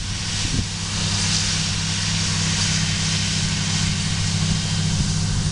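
John Deere 8230 tractor's six-cylinder diesel engine running steadily under load as it pulls a Horsch seed drill across the field, with a constant hiss above the engine note.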